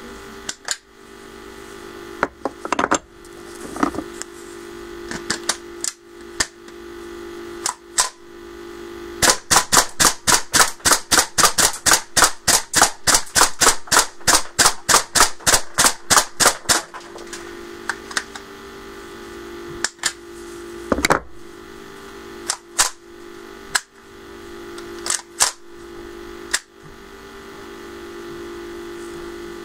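Custom K-CR 22 airsoft bullpup carbine, fed from KJW KC-02 gas magazines, firing semi-automatic: sharp single shots at irregular intervals, then a fast string of about four shots a second for some seven seconds, then single shots again. A steady low hum runs underneath.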